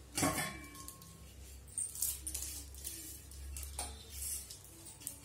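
Metal kitchenware clinking and knocking as a griddle and utensils are handled on a stove: a sharp clank with a brief ring just after the start, then several lighter knocks, over a low steady hum.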